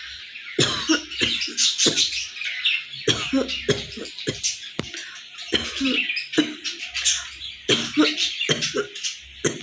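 A woman coughing and gagging in short, irregular bursts, over a steady high-pitched chirping.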